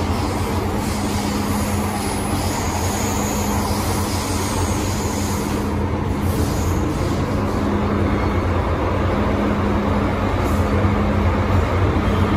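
Interior running noise of an MTR M-Train carriage in motion: a steady rumble with a constant low hum. A faint high whine comes in about two seconds in and fades a few seconds later.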